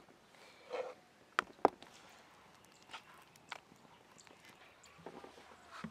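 A hand squelching through thick batter in a steel bowl, coating pieces of stuffed pointed gourd, with two sharp clicks close together about a second and a half in.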